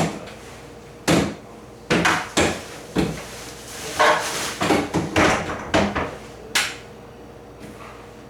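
A series of irregular knocks and bangs, about a dozen over six seconds, then quieter near the end.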